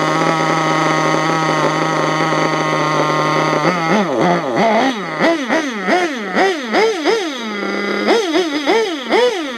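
Nitro engine of an HPI Savage RC monster truck with a dual exhaust, idling steadily, then blipped up and down in quick repeated revs about twice a second from a little under four seconds in. It is running a little rich, in the owner's words.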